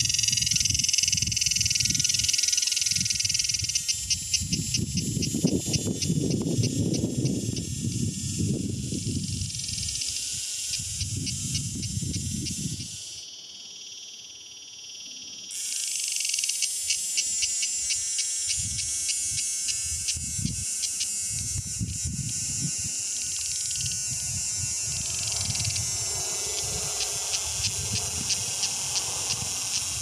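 Male cicada's mating call, made with its vibrating timbals: a loud, high-pitched metallic buzz with a rapid pulsing rattle. About 13 seconds in it sinks to a fainter buzz for two or three seconds, then comes back at full strength.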